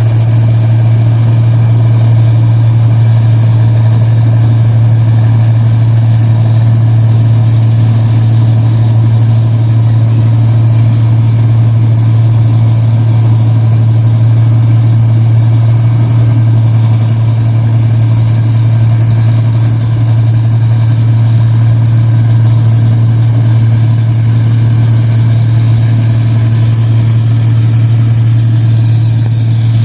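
Rice combine harvester's engine running at a steady speed under harvesting load, with a loud, constant low hum from its exhaust.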